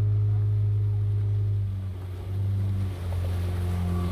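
Motorboat engine running steadily with a low hum that dips briefly about halfway through.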